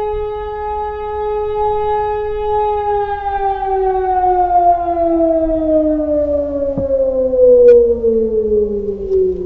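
Civil defence siren sounding a test alarm: a steady tone with several overtones that, about three seconds in, begins to slide slowly down in pitch as the siren winds down.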